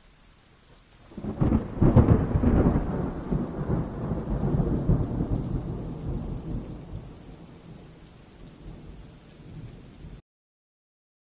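Thunder rumbling over a hiss of rain. It breaks in about a second in, is loudest around two seconds, then slowly dies away before cutting off abruptly near the end.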